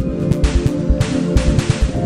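Background music with sustained chords and a steady beat.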